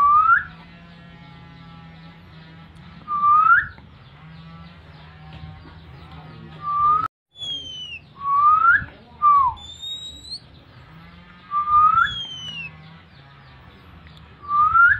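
Oriental magpie-robin (kacer) giving a loud, short rising whistle about every three seconds, one of them followed by a falling note near the middle. Thinner, higher falling whistles come in between, over a faint low hum. This is the call of a kacer in breeding condition.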